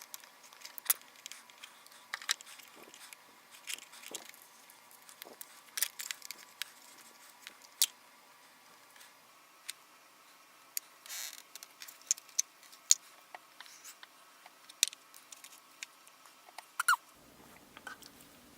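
Quiet handling of plastic Play-Doh toys and tools: scattered small clicks, taps and scrapes at irregular intervals, over a faint steady hum.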